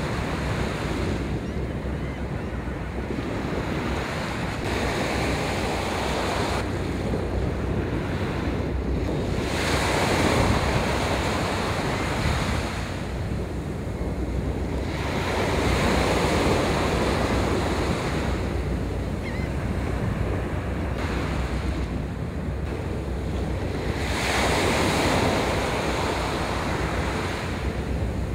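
Wind buffeting the microphone over small waves washing in at the water's edge. It is a steady low rumble with a rushing noise that swells and fades every few seconds.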